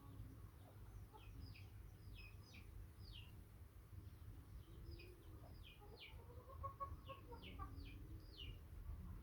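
Faint bird chirping: short, high downward chirps repeating about twice a second, over a low rumble. About six seconds in, a longer call rises and falls for a second or so.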